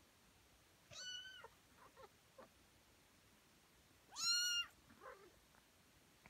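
Tonkinese cat meowing twice: a short meow about a second in, then a louder, longer one a little after four seconds in. A few faint soft clicks fall between them.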